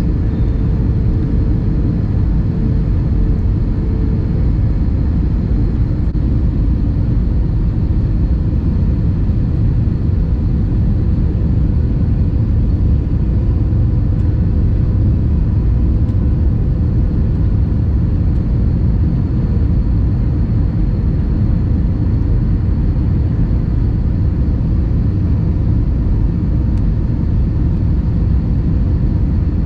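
Steady, loud low rumble inside a jet airliner's cabin on approach to landing: engine and airflow noise heard through the window seat.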